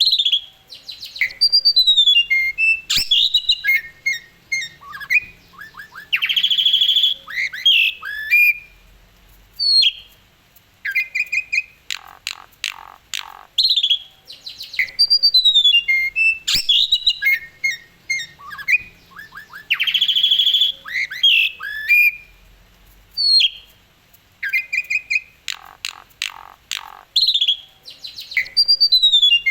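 Asian pied starling singing energetically: a long, varied song of sliding whistles, rapid trills, squeaky notes and harsh chatter. The same phrase sequence comes round again about every 13 to 14 seconds.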